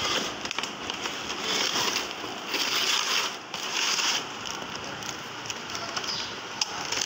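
Crinkling and rustling of plastic packaging and cardboard as a toy is unboxed, with a few sharp clicks, louder about halfway through.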